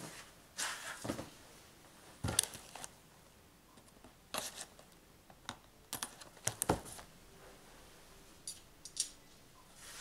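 Handling noises of unpacking: scattered clicks, knocks and rustles of a cardboard and plastic knife box as the knife is taken out, in irregular clusters with short quiet gaps.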